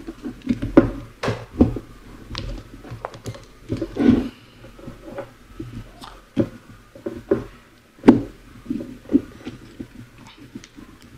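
Irregular clicks, knocks and rubbing as a drill's DC motor is worked loose and pulled out of its plastic housing by hand, the loudest knock about eight seconds in.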